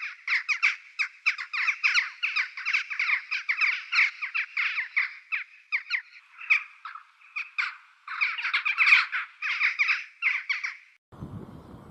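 A songbird calling in a fast run of short, harsh chattering notes, in long bursts with a brief break about eight seconds in. The calling stops suddenly near the end, giving way to a low, steady outdoor rumble.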